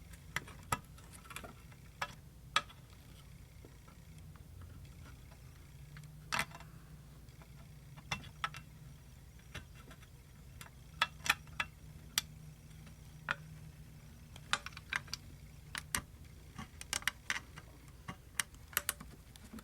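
Irregular metallic clicks and scrapes of a hook pick and tension wrench working inside an old rusted single-lever lock, pushing against a lever with a very strong spring. The clicks come scattered, bunching up around the middle and near the end, over a faint low steady hum.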